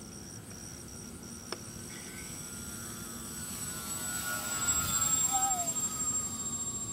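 Twin-propeller RC model PBY Catalina flying a low pass: the drone of its motors and propellers grows louder as it approaches, is loudest about five seconds in, then fades with a slightly falling pitch.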